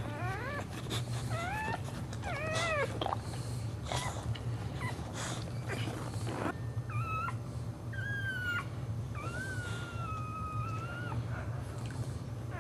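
Boxer bitch whining in labour while delivering a puppy. Short rising and falling whines come in quick succession over the first few seconds, then longer drawn-out whines, one held for about two seconds, over a low steady hum.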